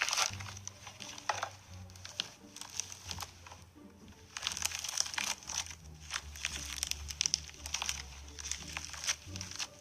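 Slime being squeezed and kneaded by hand, giving irregular runs of crackling pops and crinkles, with a short lull about midway.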